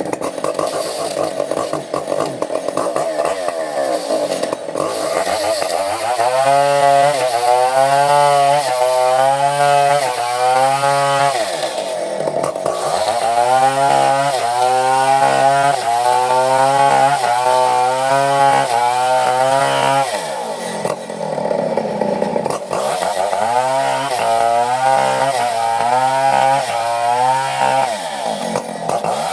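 Chainsaw running at full throttle while cutting coconut-palm wood. Its engine pitch rises and falls rhythmically about once a second while the chain is in the cut, with smoother, steadier stretches near the start, around 12 seconds in and around 21 seconds in.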